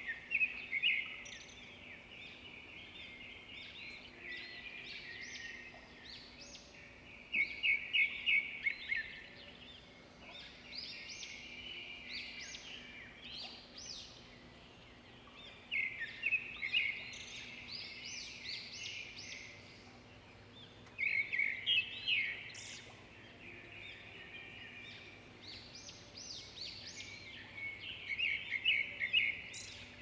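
Forest wildlife chorus of high chirping and rapid trilling calls, swelling into louder trilled bursts every several seconds over a faint steady low hum.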